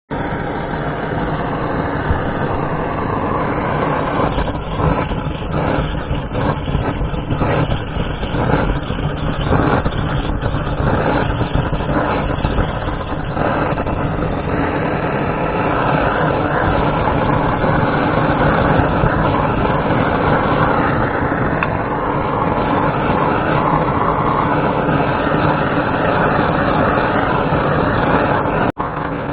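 Gas blowtorch flame running steadily, scorching the wooden door-stop birds, with one short cut-out near the end.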